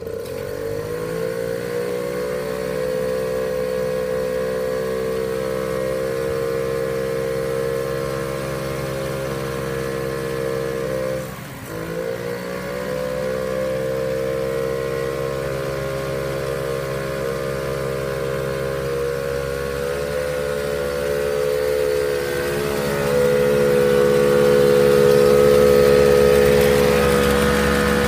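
Solex 6000 moped's small two-stroke engine running on a roller test bench, its front wheel spinning the bench roller. The pitch climbs as it comes up to speed, dips sharply about eleven seconds in and picks straight back up, and the sound grows louder near the end.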